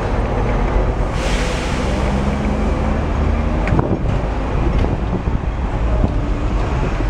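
Hong Kong double-decker tram running along its street track, heard from the upper deck: a steady low rumble and hum of the car on the rails. A brief hiss about a second in and a couple of sharp knocks near the middle.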